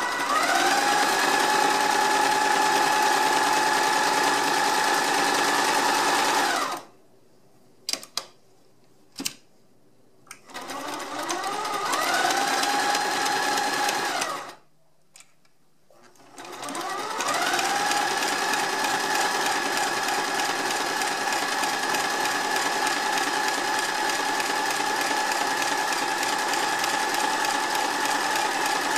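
Sears Kenmore 3/4-size sewing machine stitching a zigzag seam through fabric. Its motor speeds up with a rising whine, then runs steadily and stops, three times over. A few light clicks come in the pauses.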